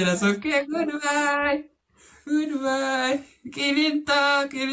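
A voice singing in long held notes, three phrases with short breaks between them.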